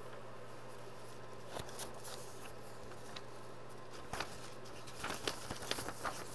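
Printed paper pages being handled and flipped, with scattered rustles and crinkles that get busier over the last two seconds, over a steady low hum.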